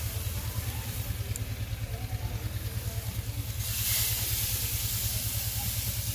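Marinated fish sizzling on a hot grill over glowing charcoal in a clay tandoor, the hiss getting louder about four seconds in as another piece is laid down. A steady low rumble runs underneath.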